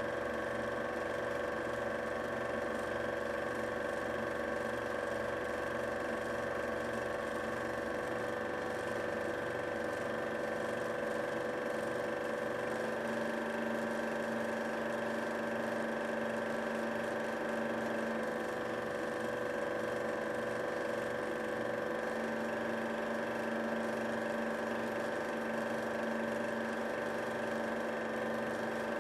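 Home-movie film projector running: a steady mechanical whirring with a constant hum.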